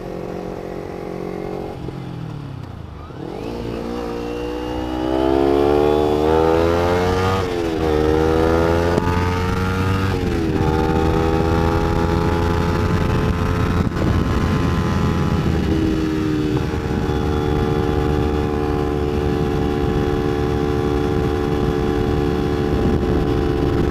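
Kawasaki Ninja 250's parallel-twin engine pulling away from low revs, rising in pitch with two quick upshifts about seven and ten seconds in, then holding a steady cruise.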